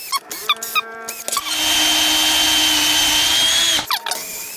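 Makita cordless drill boring pilot holes into a hard plastic trim board: a few short blips of the trigger, each a quick rising and falling motor whine, then a steady run of about two seconds that stops near the end.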